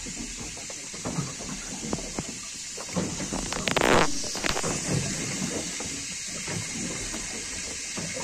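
Scattered small knocks over a steady background hiss on a small fishing boat. About four seconds in, a louder scraping rub as the handheld phone is jolted against something.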